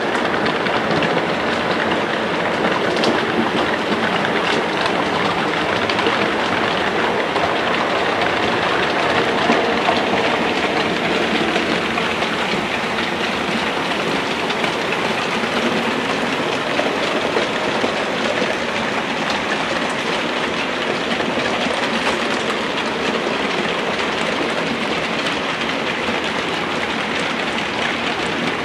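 Model railway trains running on the layout's track: a steady, dense rattle of small wheels over rail joints and pointwork.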